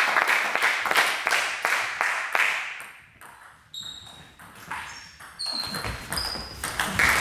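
Clapping from spectators that fades out after about three seconds, followed by a short table-tennis rally: sparse sharp clicks of the celluloid ball off the bats and table, with short high squeaks of shoes on the hall floor. Clapping starts again right at the end.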